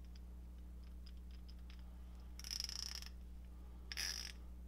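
Nepros ratchet with a 19 mm socket fitted, its pawl clicking faintly as it is turned: a few single ticks, then two short fast runs of clicks about two and four seconds in.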